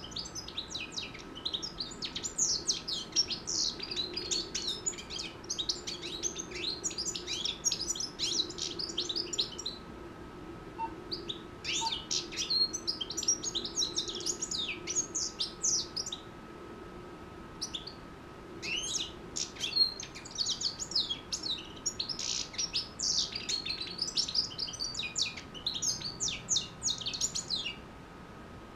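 A six-month-old European goldfinch singing in its cage: fast, liquid twittering song in three long bursts, with short pauses about ten seconds and eighteen seconds in.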